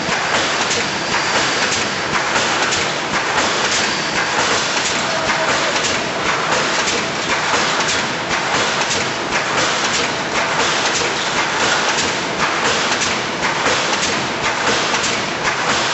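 Multi-head wire mesh welding machine running: a loud, steady mechanical clatter of many knocks as the welding heads cycle.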